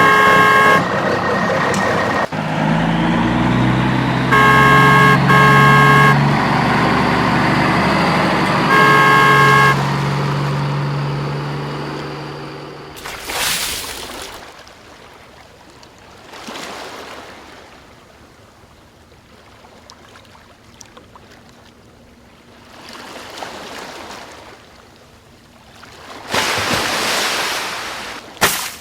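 Toy truck's electronic sound effects: a horn beeping four times over an engine sound that climbs in steps and then fades. Later come several short rushes of water spraying, the loudest near the end.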